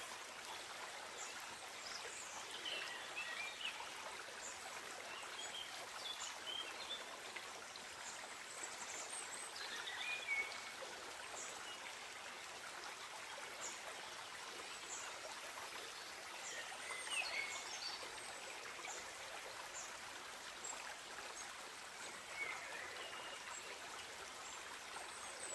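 Faint steady flowing of a shallow forest stream, with scattered short high bird chirps.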